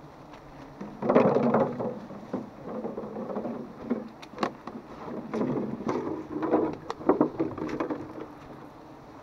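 Irregular rustling and crackling of cut leafy branches and dry leaf litter being handled, in uneven bursts with a few sharp snaps, starting about a second in.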